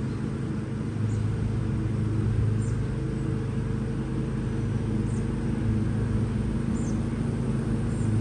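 John Deere X320 riding lawn tractor's engine running at a steady pitch, as in mowing.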